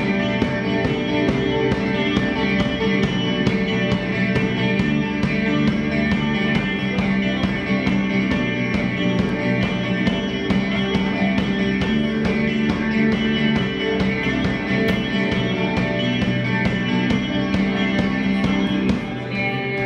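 Rock band playing live: electric guitars over a drum kit keeping a steady beat.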